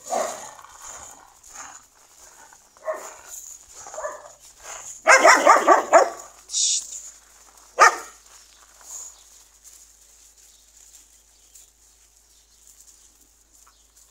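Dogs barking in short separate calls, then a loud flurry of overlapping barks about five seconds in and one more sharp bark near eight seconds, after which it goes quiet.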